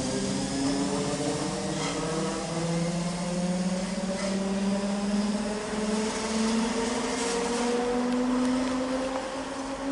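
ÖBB class 4020 electric multiple unit's traction motors humming, a few steady tones that climb slowly in pitch as the train gathers speed, over the rolling noise of wheels on rail.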